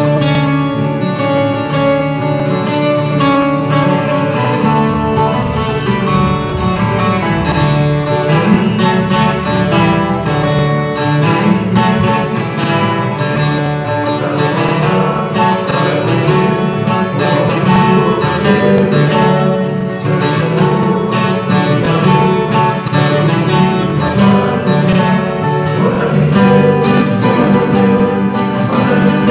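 Ten-string viola caipira played solo: a continuous run of plucked notes and chords on its paired steel strings, ringing over one another in a caipira-style tune.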